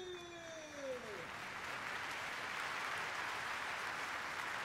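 Arena crowd applauding steadily, with a falling tone fading out in the first second.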